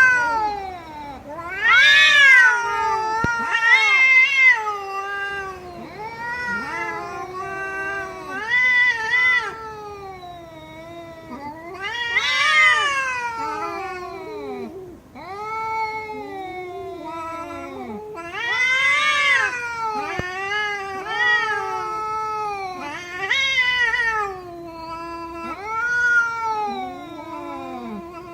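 A cat meowing over and over: a long string of drawn-out meows that rise and fall in pitch, following one another with hardly a pause.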